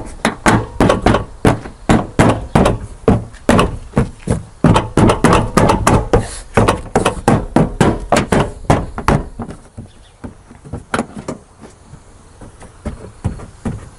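Plastic tailgate trim panel being knocked onto its push clips by hand: a rapid run of sharp knocks, about four a second, that thins out to a few scattered knocks after about nine seconds.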